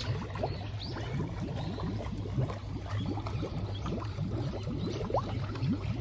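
Pond carp gulping and slurping at the water surface as they feed: a busy, continuous patter of quick wet pops and gurgles, several a second.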